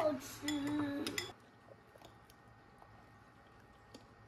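A short vocal sound in the first second, its pitch sliding down and then held briefly, then quiet table sounds: faint clinks and ticks of cutlery and dishes during a meal.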